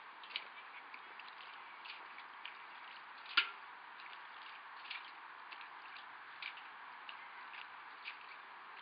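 Small drips and splashes of pond water from a metal ladle being dipped and lifted out, scattered irregularly over a steady hiss, with one sharper click about a third of the way in.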